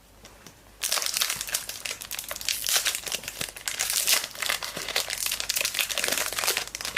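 A trading-card pack wrapper crinkling as it is torn open and handled. It starts about a second in and keeps up a dense crackle of small clicks.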